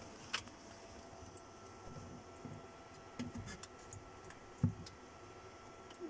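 Light clicks and knocks of a fridge fan motor and its wire connectors being handled and fitted into the plastic fan housing, a few scattered taps with the loudest knock about four and a half seconds in.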